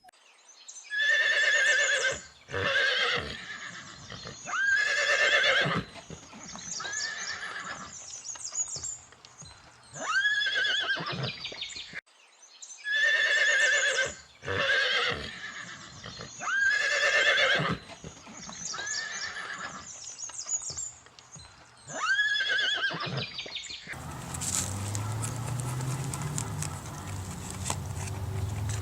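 An animal giving loud, wavering, high-pitched calls about a second long in clusters, some rising in pitch at the start. Near the end they give way to a steady, low, noisy sound.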